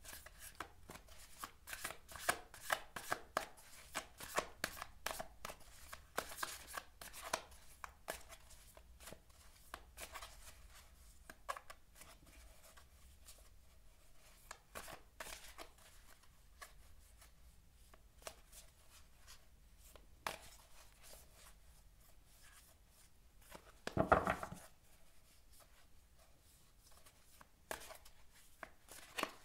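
A deck of tarot cards being shuffled by hand: a run of soft, quick card slaps and clicks, busiest in the first several seconds and thinning out later, with one louder thump about three-quarters of the way through.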